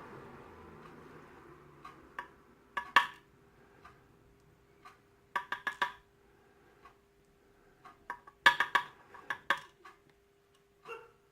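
Small metal lock parts and tools clinking and tapping while a padlock is taken apart, in several short clusters of light clicks, the busiest about 3, 6 and 9 seconds in. A faint steady hum runs underneath.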